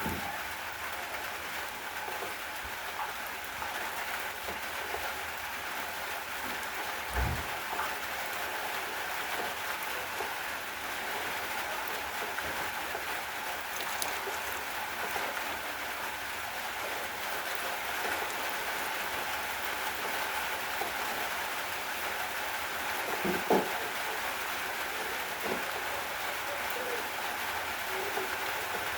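Steady rain falling, an even hiss with no let-up. One low thump comes about seven seconds in, and a sharper knock comes past twenty-three seconds.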